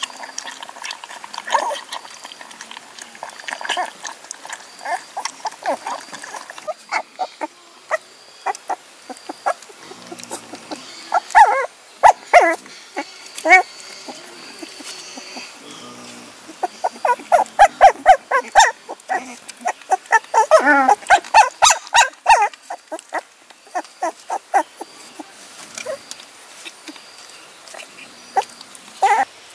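Puppies whining and yelping in many short, high cries while they play-bite each other. The cries come in quick runs and are loudest in two spells around the middle.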